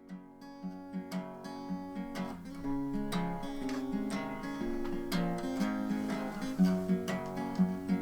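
Acoustic guitar playing picked notes and strummed chords, starting out of silence and growing louder over the first few seconds.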